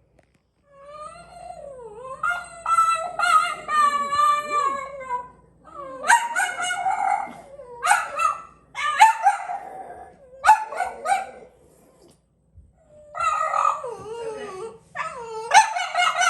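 French bulldogs howling in several drawn-out bouts of wavering, rising and falling howls, with short pauses between them.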